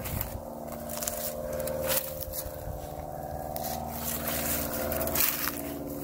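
Footsteps crunching and swishing through dry fallen leaves and tall dead grass, with a steady low hum of several held tones underneath.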